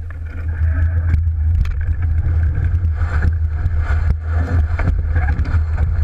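Wind buffeting the microphone as a steady low rumble, over water rushing along the hull of an Alberg 30 sailboat under sail, with scattered knocks and clicks throughout.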